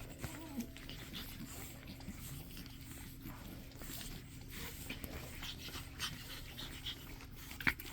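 Pug puppies panting and snuffling, with many small scratching clicks as they scramble and chew at play.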